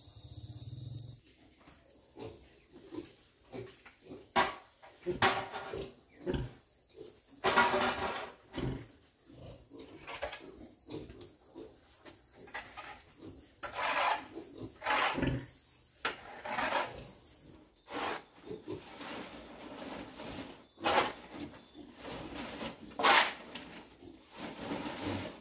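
Dry loose bedding being raked and spread across a pen floor, making irregular scraping, rustling swishes, then scooped by hand from a plastic sack. Pigs grunt now and then.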